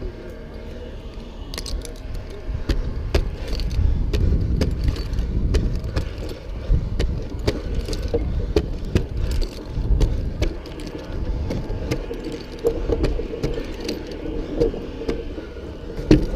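Metal climbing hardware on a lineman's harness — carabiners and the pole strap's fittings — jangling and clicking in irregular sharp clicks as he climbs a wooden utility pole, over a steady low rumble of wind on the head-mounted camera.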